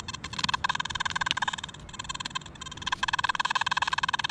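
Rapidly pulsing electronic beep of metal-detecting gear sounding on the target, with stacked buzzy pitches; it weakens for a couple of seconds and comes back strong near the end. The detector and pinpointer are interfering with each other. A few light knocks from handling in the hole.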